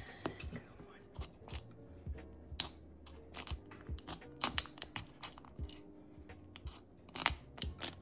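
X-Acto knife blade scoring a thin clear plastic ornament ball, a run of irregular sharp clicks and crackles as the blade cuts a slit, growing louder near the end.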